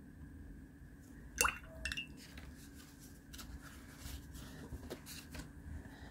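Paintbrush put into a ceramic mug of rinse water, clinking sharply against the mug twice about a second and a half in, followed by a few faint light taps.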